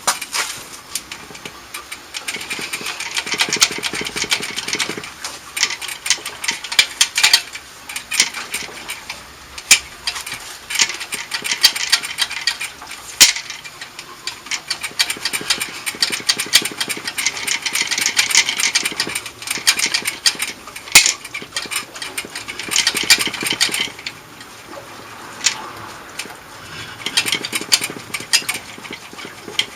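Repeated bursts of metal rattling and scraping with sharp clicks and knocks, as a stuck stock muffler is worked loose from a Harley-Davidson's exhaust by hand and with tools.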